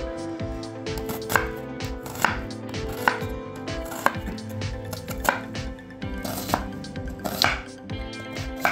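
Kitchen knife slicing a red onion on a wooden cutting board, the blade knocking sharply on the board about once a second.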